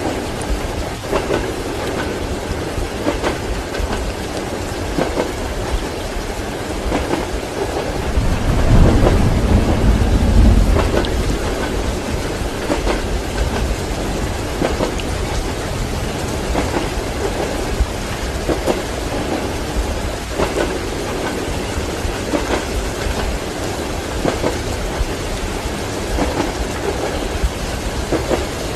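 Steady rain with the regular clack of train wheels over rail joints. A roll of thunder rumbles from about eight to eleven seconds in.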